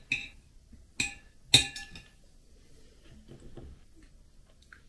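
Metal spoon clinking against a plate while scooping cottage cheese: sharp ringing clinks at the start, about a second in, and again about half a second later.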